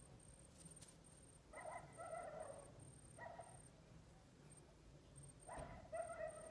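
Kitten mewing: three high calls, a longer one about a second and a half in, a short one around three seconds, and another near the end, over a faint high chirping in the background.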